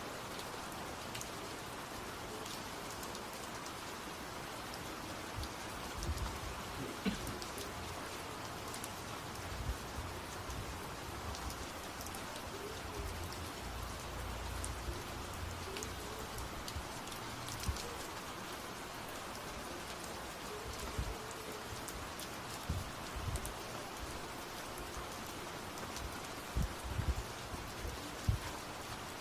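Steady rain falling, with scattered sharper drop taps and a low rumble about halfway through.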